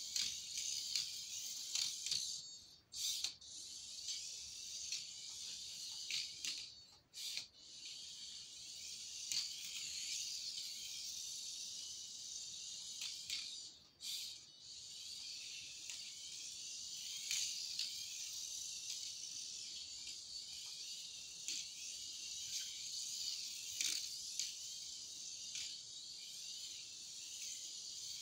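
Turbo Racing C75 1:76 micro RC car's tiny electric motor and gears whining high and steady as it laps. The whine cuts out briefly a few times when the throttle is let off, with faint clicks.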